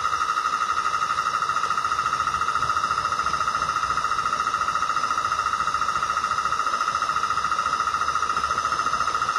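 Mamod Boulton live-steam model locomotive running, heard from inside its cab: a steady high tone with a rapid, even pulse of exhaust beats over a low rattling rumble from the running gear.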